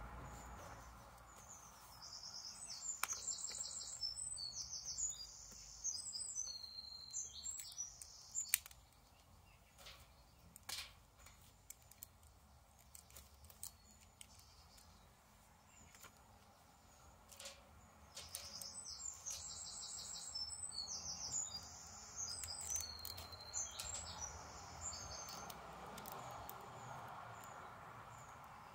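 A songbird singing two bouts of rapid, repeated high-pitched phrases, one early and one in the second half. Small plastic building bricks click sharply now and then as they are handled and pressed together.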